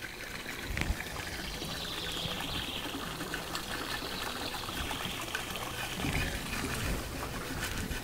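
Garden sprinkler spraying water over the vegetable beds: a steady trickling and splashing of water.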